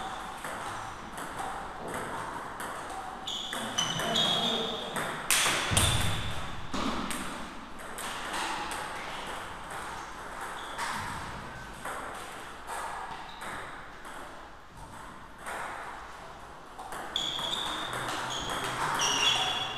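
Table tennis ball clicking back and forth between paddles and table in rallies, with short pauses between points.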